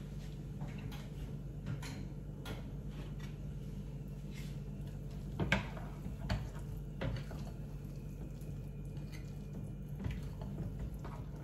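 Spoon stirring thick oats-and-semolina batter in a glass bowl, with scattered light clicks of the spoon against the glass and a louder knock about five and a half seconds in, over a steady low hum.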